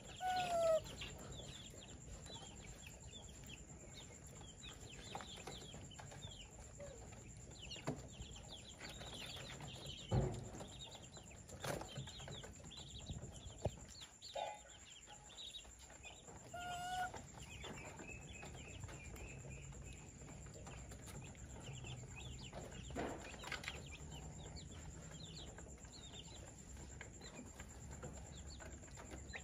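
Baby macaque eating mashed food from a plastic bowl: faint wet smacking and small clicks. There are two short high calls, one just after the start and one a little past halfway, and a single louder knock about a third of the way through.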